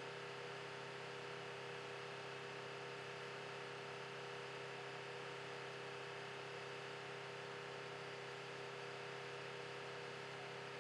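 Faint steady hum with an even hiss behind it, unchanging, with no distinct events.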